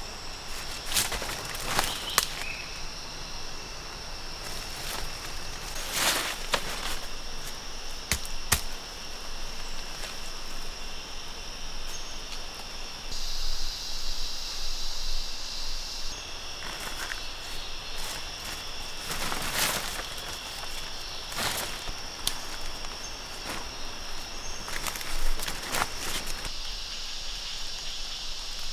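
A steady high-pitched insect chorus drones throughout, and a louder buzz joins it for a few seconds midway. Over it come scattered crunching and rustling strokes of footsteps and handling in dry leaf litter.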